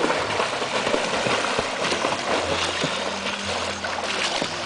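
Pool water splashing and churning as several swimmers kick and stroke through it, a continuous rush of small splashes.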